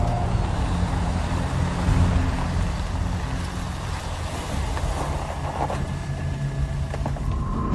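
A car driving along a road: steady engine and tyre noise with a low rumble.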